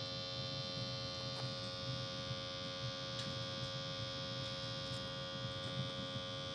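Batch-box rocket stove (Double Shoebox Rocket) burning at full draft: a steady low rumble of the fire in the core, with a steady hum over it and a few faint crackles from the burning wood.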